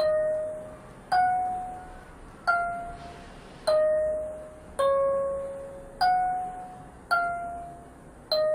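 Wooden kalimba (thumb piano) played with the thumbs: single metal-tine notes plucked about once a second in a slow melody, each ringing out and fading before the next.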